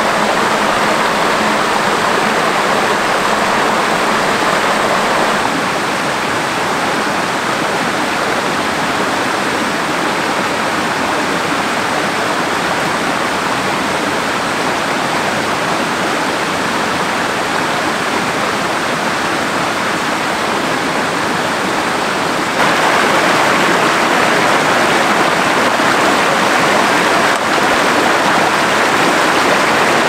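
Shallow rocky stream running over small cascades, a steady rush of water with no other sound; it steps a little quieter about five seconds in and louder again about 23 seconds in.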